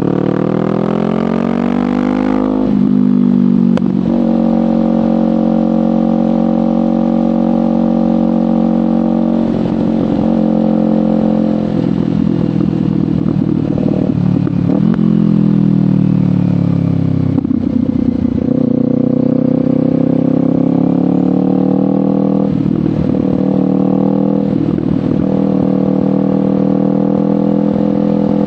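Kawasaki Ninja 500's parallel-twin engine running through a LeoVince GP Corsa Evo slip-on exhaust while riding. Its pitch rises under throttle and falls off when the throttle closes, with several brief breaks in the tone as the gears change.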